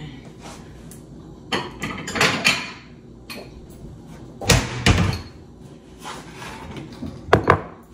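Several sharp knocks and clatters of kitchen cupboard doors and dishes as a glass bowl is taken out, the loudest pair near the end.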